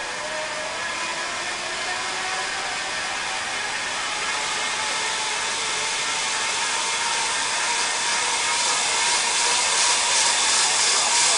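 Zip-wire trolley running along its steel cable: a steady hiss with a faint whine that rises slowly in pitch, growing louder throughout.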